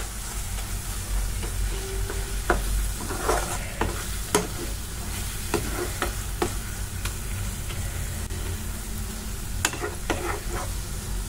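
A perforated spoon stirring and scraping thick onion-tomato masala around a nonstick kadai, with irregular scrapes and clacks against the pan. Under it runs a soft sizzle as the ground spices fry into the base on low heat.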